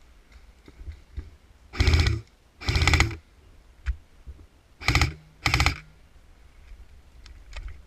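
Airsoft gun firing four short bursts of rapid shots, two together about two seconds in and two more about five seconds in, with faint small clicks between them.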